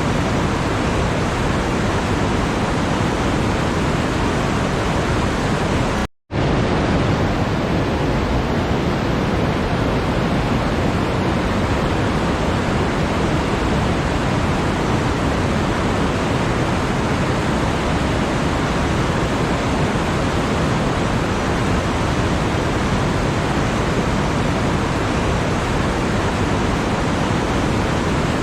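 Steady, even rushing noise, like pink noise, cutting out to silence for a moment about six seconds in and then resuming unchanged.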